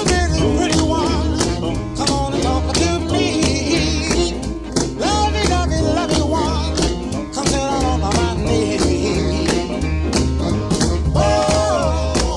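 Background music: an upbeat song with singing over guitar and a steady beat.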